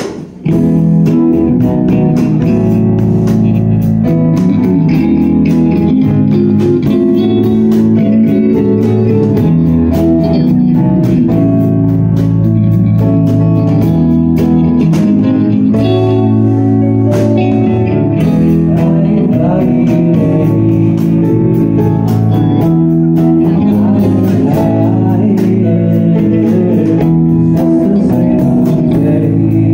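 Live rock band playing loudly: electric guitars, bass and a drum kit with cymbal hits. The full band comes in together about half a second in, after a quieter guitar-only lead-in.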